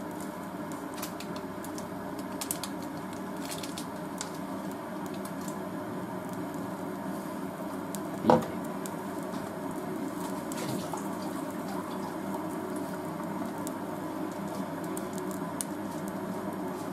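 Beef suet melting in a small nonstick saucepan on an induction hob: a faint, steady sizzle with scattered light crackles. One sharp knock about eight seconds in.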